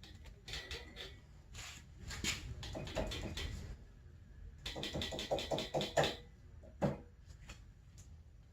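Metal clicks and clinks of hand tools working the bolts and nuts of a snowmobile's front suspension, with a quick even run of clicks about five seconds in and a single sharp knock near seven seconds.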